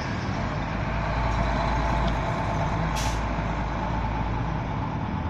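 Rear-loader garbage truck engine running as the truck pulls away, with a short sharp hiss of the air brakes releasing about three seconds in.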